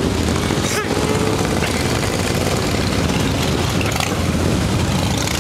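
A column of motorcycles, mostly cruisers, riding past one after another, many engines running together in a steady, continuous rumble.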